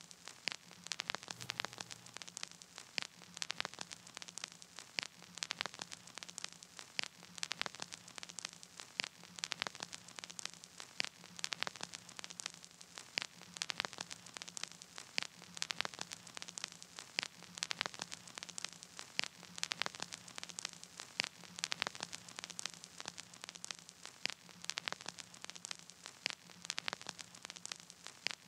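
Crackling static: dense, irregular clicks over a faint hiss, with a faint low hum that comes and goes, and no music.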